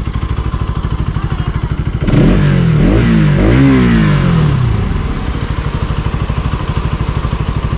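A motorcycle engine idles with a steady, even putter. About two seconds in, a motor scooter rides past, and its engine pitch sweeps up and then down over a couple of seconds. The passing scooter is the loudest part.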